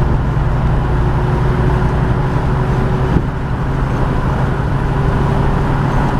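Inside the cab of a 1996 Chevy Tahoe at driving speed: a steady V8 engine and road drone, with one short click about three seconds in. The intermittent misfire kick at torque converter lockup is hard to pick out.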